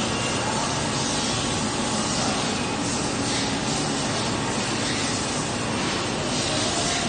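Miyano MTV-T301 CNC tap and drill center running, giving a steady, even hissing noise.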